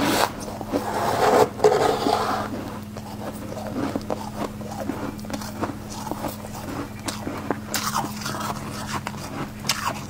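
Metal spoon scraping and scooping frost from the inside walls of a chest freezer: a run of crisp scratches and crunches, loudest and densest over the first two seconds or so, then lighter scraping as the frost is packed onto the spoon.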